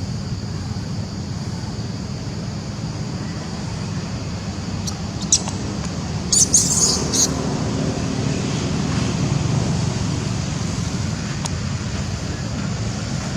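Steady outdoor background noise with a low rumble, like distant traffic, and a few short high-pitched sounds about five to seven seconds in.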